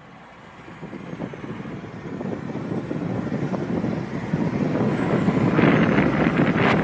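Wind rushing over the microphone with a low rumble, fading in and growing steadily louder, with gusty crackling near the end.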